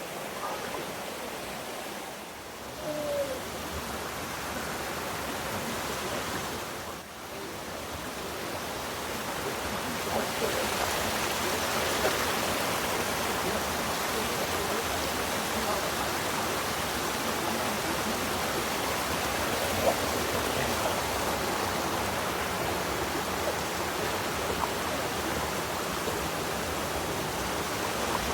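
Waterfall rushing: a steady hiss of falling water, which grows louder about eight to ten seconds in and then holds.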